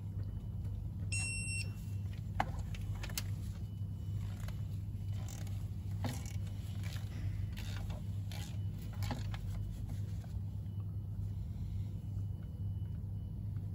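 Digital torque wrench tightening the timing-belt idler and tensioner bolts to 50 Nm: one short high beep about a second in as the wrench signals the set torque is reached, then a few scattered sharp clicks of the tool, over a steady low hum.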